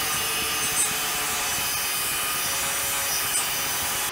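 Handheld angle grinder cutting into a 1/8-inch solid stainless steel bar: a steady, harsh grinding hiss over the grinder motor's whine. The wheel is held in one spot long enough to burn and discolor the end of the bar.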